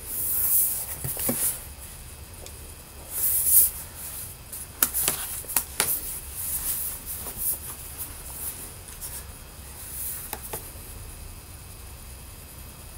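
Handling noise of an aluminium MacBook Pro being turned over, set down and opened: rustling, with a few sharp clicks and knocks about five seconds in, then softer taps.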